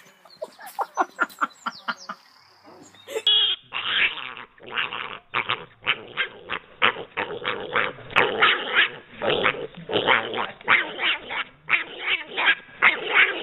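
A small pet pig held up in a person's hands, calling over and over in short loud grunts and squeals, about two or three a second. In the first three seconds, before it, comes a separate run of short, evenly spaced pitched calls.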